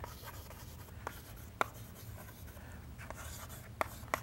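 Chalk writing on a blackboard: faint scratching strokes broken by a handful of sharp, irregular taps as the chalk strikes the board.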